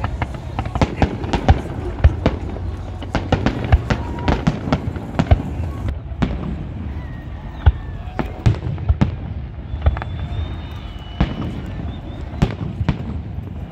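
Fireworks display: a rapid run of sharp bangs and crackling reports through the first half, then more widely spaced single bangs.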